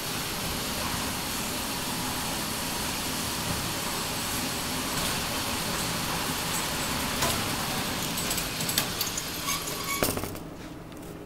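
Electric target carrier of an indoor range running steadily along its overhead track, bringing the paper target back up the lane. A few clicks and rattles come near the end as it arrives and stops, then the running noise falls away.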